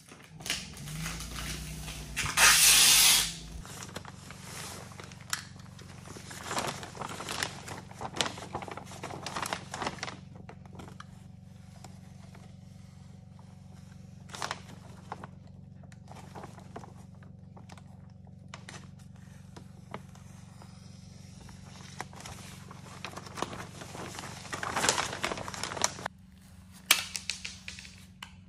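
Tape ripped off the roll in a loud tearing rasp, then plastic vapor barrier sheeting crinkling and rustling as the tape is pressed over the seams. A steady low hum runs underneath.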